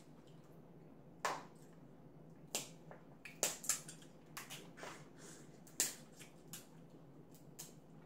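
Boiled crab leg shells cracking and snapping as they are broken apart by hand: a string of sharp cracks at irregular intervals, with smaller crackles between them.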